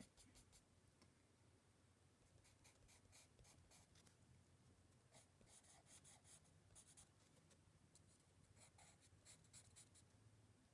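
Faint scratching of a soft charcoal pencil on sketch paper, in several runs of short quick strokes with pauses between them.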